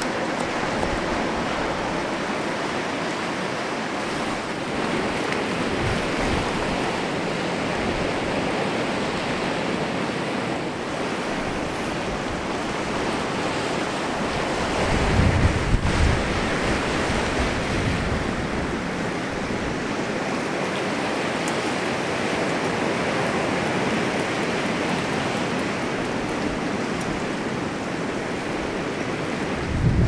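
Sea surf washing steadily on the shore. About halfway through, wind briefly rumbles on the microphone.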